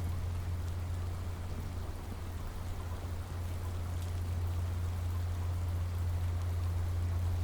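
Steady rain falling, an even hiss with scattered drop ticks, over a constant low rumble that does not change.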